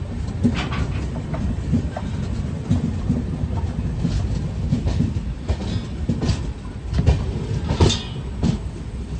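Intercity Superfast Express passenger coach running along the track, heard from its open doorway: a steady low rumble with irregular clacks of the wheels on the rails.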